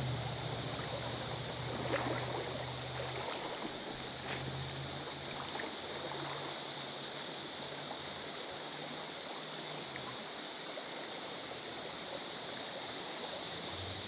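River water running steadily over a shallow riffle. A low droning hum sits under it and fades out about ten seconds in.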